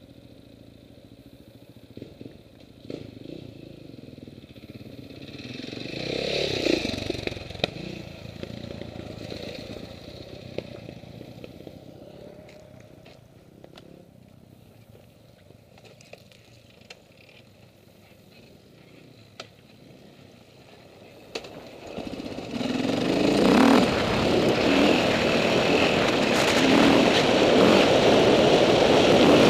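Dirt bike engine running low in the background with a brief rise about six seconds in and a few scattered clicks, then from about 22 seconds in the bike pulls away and runs loud and steady along a dirt trail.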